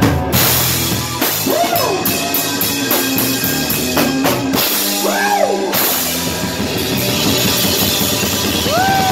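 Live rock band playing: drum kit with cymbals, electric bass and electric guitar, the guitar's notes sliding up and down in pitch a few times.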